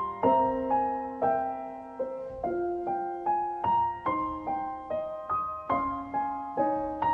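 Background piano music: a slow, gentle melody of single notes struck about twice a second, each ringing and fading.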